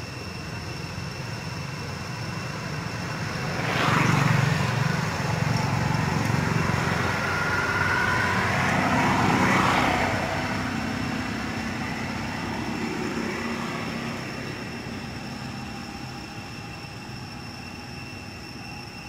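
Engine noise of a motor vehicle passing by: it swells suddenly about four seconds in, stays loud with gliding pitch until about ten seconds in, then fades away slowly.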